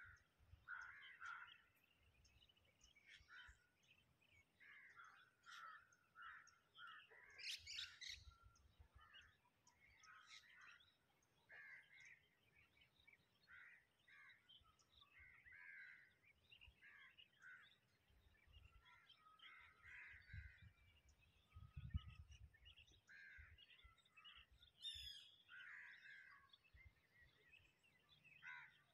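Faint birds calling over and over in short repeated calls, with a brief high trill near the end. A short low rumble comes about three-quarters of the way through.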